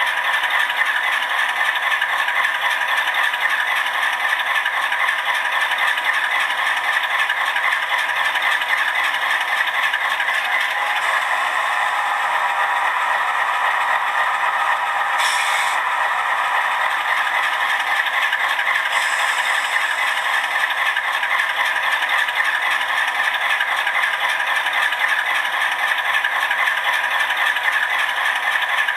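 Diesel locomotive engine sound from the ESU LokSound decoder in an HO scale GE C39-8 model, playing as a steady rattling run through its small speaker, with a short hiss about halfway through.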